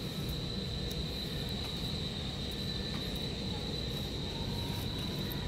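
Insects trilling steadily at one high pitch, over a low, even background rumble.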